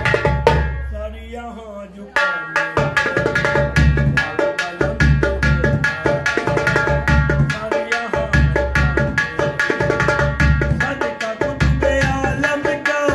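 Qawwali: a man's singing voice over a steady beat of wooden-stick strokes on a large hide-headed drum. The beat stops about half a second in, leaving the voice alone in a gliding phrase, and comes back about two seconds in.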